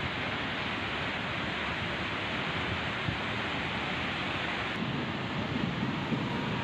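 Steady rushing noise of storm or flood water and wind, with a heavier low rumbling from about five seconds in.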